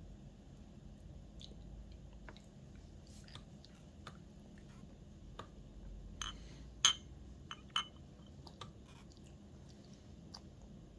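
A baby chewing and smacking on soft food, with scattered small clicks and clinks of tableware; the sharpest clicks come a little past halfway.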